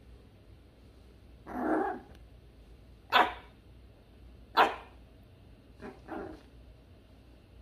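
Maltese puppy barking, a puppy that has just learned to bark: first a longer, lower bark, then two sharp, loud yaps, and two softer quick ones near the end.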